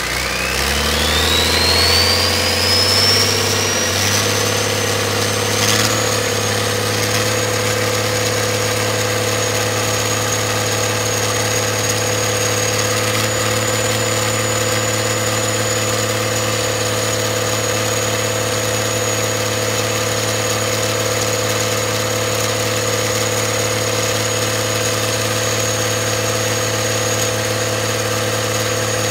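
Cummins diesel engine on a test run, speeding up over the first few seconds and then running at a steady speed. A high whine rises with it and then holds steady.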